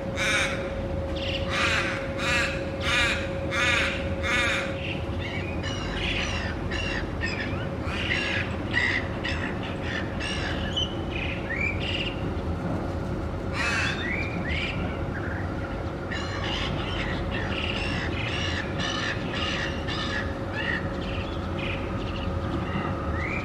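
Little raven calling a run of about six harsh caws in quick succession over the first five seconds, followed by a scatter of shorter, varied bird calls. A steady hum and a low background rumble run underneath.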